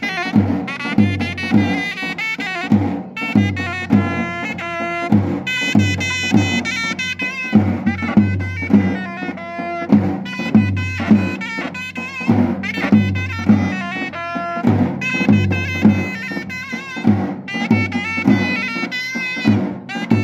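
A sorna (shawm) playing a loud, reedy dance melody in short phrases over a steady beat on a dohol drum: Bakhtiari wedding dance music.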